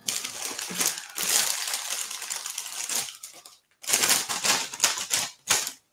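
Scraping and rustling handling noise, in two long stretches with a short break a little past three seconds in, ending in a few sharper scrapes.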